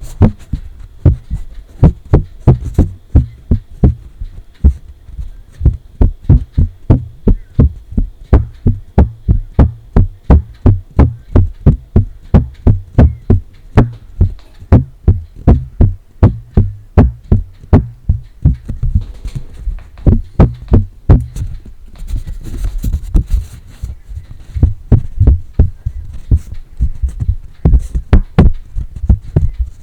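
Paper being tapped close to the microphone: quick, regular, thuddy taps, about three a second, with a brief pause about two-thirds of the way through.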